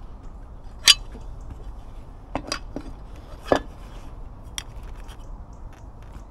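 Sharp clicks and knocks as the narrowboat's grey cover is handled and its fastenings worked: a loud one about a second in, a quick cluster around two and a half seconds, another loud one at about three and a half seconds and a last one near five seconds, over a steady low background.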